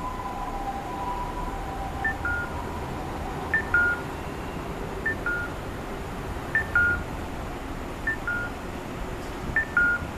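Electronic warning chime repeating a falling two-note ding-dong about every one and a half seconds, over a steady background hum: the alert for an approaching train.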